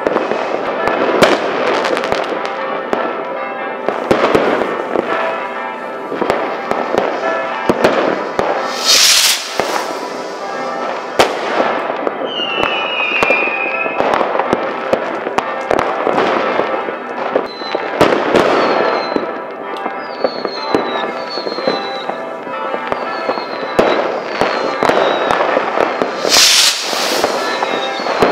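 Fireworks going off densely: a constant run of sharp firecracker bangs and bursts over crackling. Loud shrill whistles come about nine seconds in and again near the end, and a string of short falling whistles runs through the second half.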